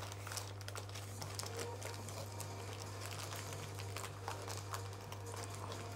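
Paper takeaway bag and wrappers rustling and crinkling in irregular small bursts as they are handled and opened, over a steady low hum.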